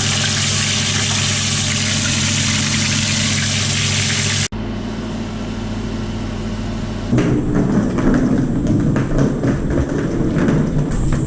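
An engine running steadily for several seconds, cut off abruptly near halfway. It is followed by a quieter steady hum, then a louder, busier noise with many small clatters.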